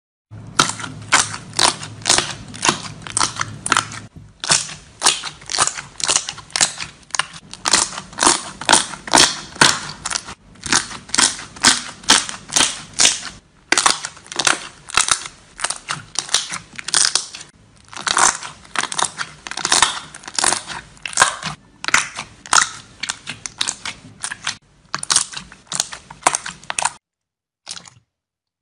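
Thick, foamy, creamy slime squeezed and kneaded by hand, crackling and popping as trapped air bursts, several sharp pops a second in runs with short breaks.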